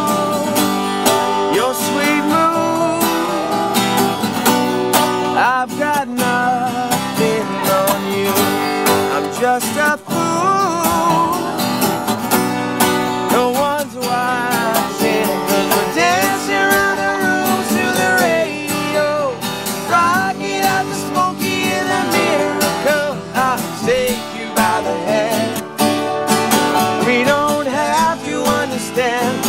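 Acoustic country music played live: acoustic guitar strumming under a lap-played slide guitar whose notes glide and bend in pitch.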